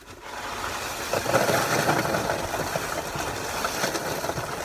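Loose gravel pouring from a bag and rattling into a pit being filled around a sump basin, getting loud about a second in and then running on steadily.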